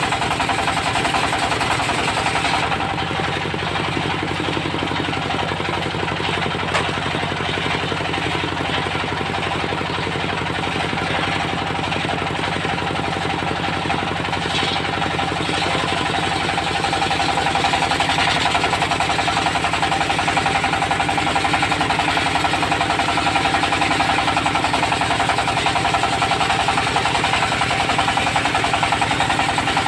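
Engine of a portable circular-saw sawmill running steadily with a fast knocking beat and a steady high hum from the saw, growing a little louder about halfway through.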